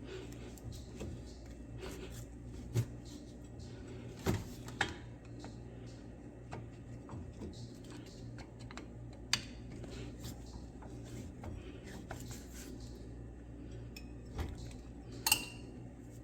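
Metal tools clinking against a car's disc brake caliper and pads while the caliper piston is pushed back. The clinks come as a handful of sharp metallic clicks, spaced irregularly, over a low steady hum. The loudest comes near the end and rings briefly.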